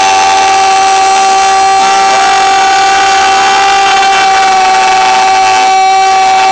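Several people holding the long, drawn-out 'Yaaaam' shout of a Cantonese yum seng toast as one loud, steady note; another voice joins the held note about two seconds in.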